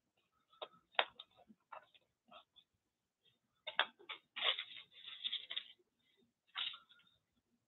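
A few light taps and clicks, then about halfway through a second or so of rustling as hands rummage through a pile of cut paper collage scraps, with another tap near the end.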